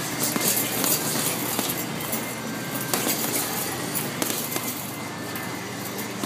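Boxing gloves landing on hanging heavy bags in irregular punches, with the bags' suspension chains clinking and rattling.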